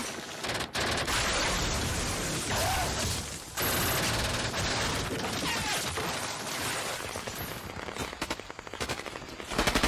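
War-film battle soundtrack: sustained volleys of rifle and machine-gun fire, turning into sharper separate shots near the end.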